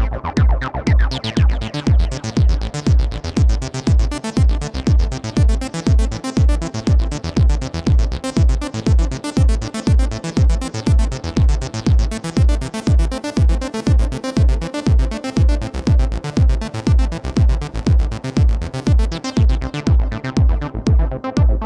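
Electronic dance music with a steady, heavy kick drum about two beats a second under layered synthesizers.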